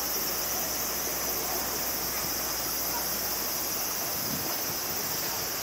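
Steady high-pitched insect drone, unbroken throughout, over a faint wash of outdoor background noise.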